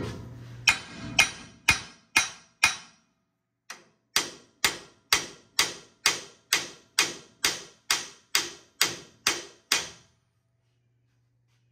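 Hammer blows on a Ford Super Duty's steel front steering knuckle, about twenty sharp ringing strikes at roughly two a second with a short pause after the first six, knocking the ball-joint studs loose from the knuckle.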